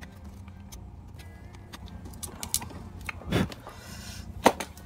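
A craft knife blade scratching and clicking on the solder side of a TV circuit board as a copper trace to the flyback transformer is cut through. There is a louder knock about three and a half seconds in and a sharp click near the end.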